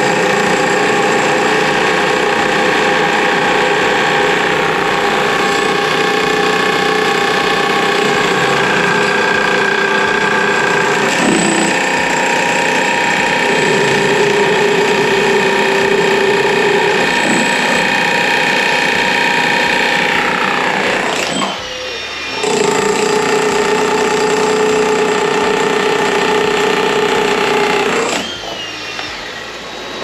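Two electric demolition breakers hammering into concrete slabs at the same time: a Hilti TE 2000-22 cordless breaker and its corded counterpart. The noise dips briefly a little past two-thirds of the way in, then resumes. Both stop a couple of seconds before the end, their motors winding down.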